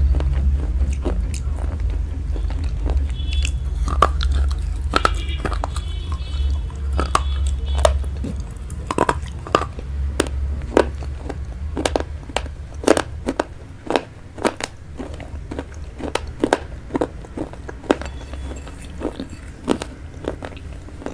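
Close-miked chewing of vegetable chow mein: wet smacking and crunching with many sharp mouth clicks. A steady low hum runs under the first half and fades out about halfway.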